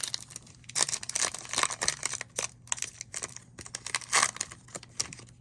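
Foil trading-card pack wrapper crinkling and crackling as it is torn open and handled, in clusters of sharp crackles with the busiest stretch about a second in and another burst near four seconds.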